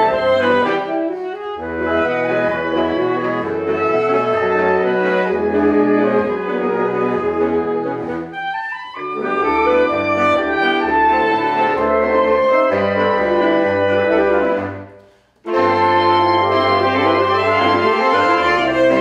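An eight-player saxophone ensemble plays a lively arranged tune, with sustained chords over a stepping bass line. About fifteen seconds in the music stops for a short break, then comes back in full together.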